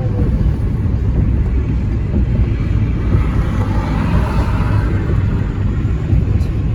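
Steady low rumble of road traffic, with a vehicle passing more loudly about three to five seconds in.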